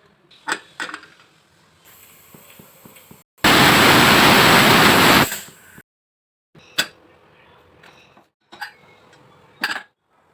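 Kitchen cooking sounds: a few sharp utensil clicks and knocks, and in the middle about two seconds of loud sizzling hiss that dies away.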